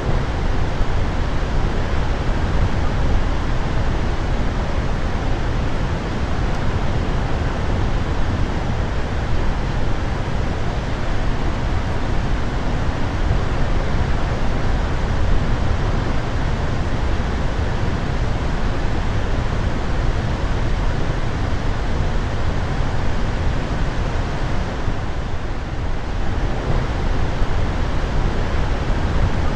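Snoqualmie Falls above flood stage, about 25,000 cubic feet per second of water plunging into the pool below: a steady, deep rushing, heaviest at the bass end.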